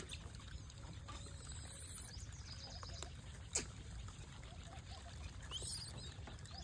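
Faint outdoor ambience: a steady low rumble, a single sharp click about three and a half seconds in, and a few faint high chirps.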